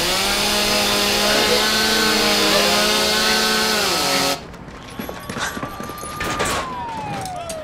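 Power saw spinning up and cutting into metal, steady and loud, its pitch sagging under load before it cuts off abruptly about four seconds in. A quieter stretch follows, with a single high tone that holds and then slides steadily downward.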